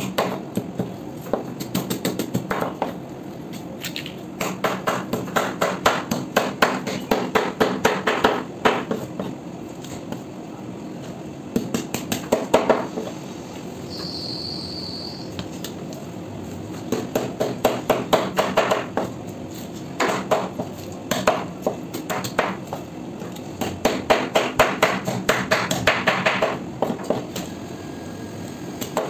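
Steel cleaver scraping scales off a large fish against a wooden chopping board. The strokes come as runs of quick sharp knocks, several a second, with short pauses between runs.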